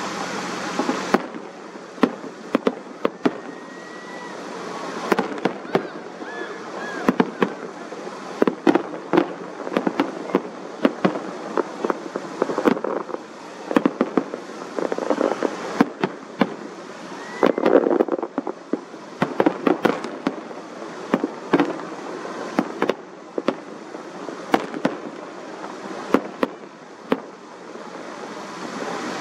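Distant aerial fireworks display: a dense, irregular run of sharp bangs and crackles, with rumbling booms swelling up in the middle.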